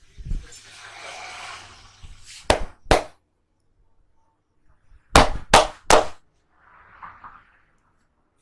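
Sharp massage slaps from the barber's hands: two about half a second apart, then three in quick succession a couple of seconds later, with a soft hissing noise before them.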